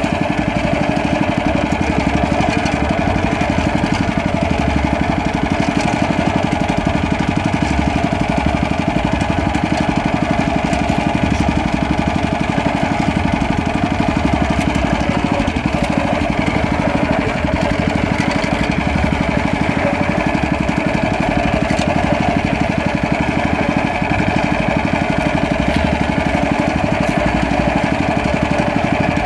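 Small engine of an outrigger fishing boat running steadily at an even speed.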